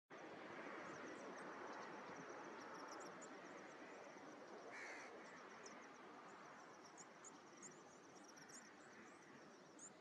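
Faint outdoor ambience: a steady low hiss with many short, high-pitched chirps and twitters of small birds scattered throughout, and a brief soft noise about five seconds in.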